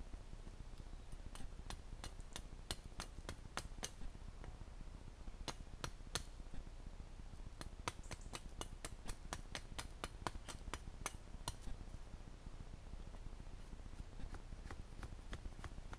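Runs of sharp clicks and snaps, two or three a second, with short pauses between the runs, from gloved hands and a small tool working dry sticks and bamboo.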